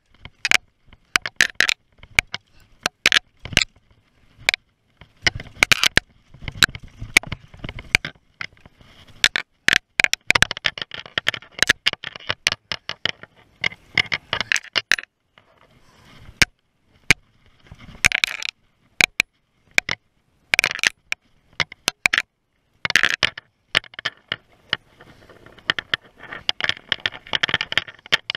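Mountain bike descending a dry dirt singletrack, its tyres crunching over dirt and rocks. The bike gives frequent sharp, irregular knocks and rattles, with scraping in between.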